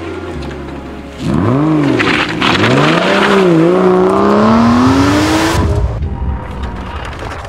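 Aston Martin V12 Vantage's V12 engine revving hard. The pitch swings up and back down in a quick blip, then climbs steadily with a brief dip before cutting off abruptly.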